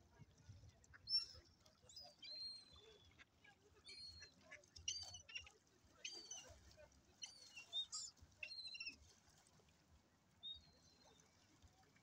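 Gulls and ducks calling: a scattered run of short, high-pitched cries that fall in pitch, thickest in the middle and thinning out after about nine seconds.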